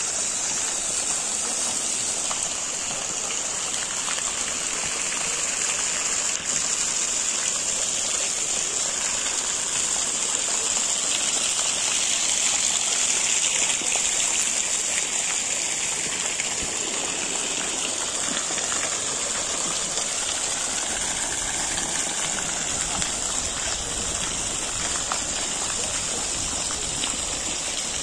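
Swimming-pool deck water jets spraying in arcs and splashing steadily onto the pool's surface, a constant hiss of falling water.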